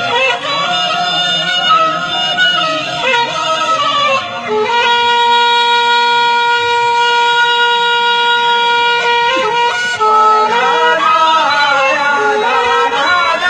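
Traditional Bedouin chanting in the Sibani style: a voice sings a winding melodic line, holds one long steady note for about five seconds in the middle, then takes up the winding melody again.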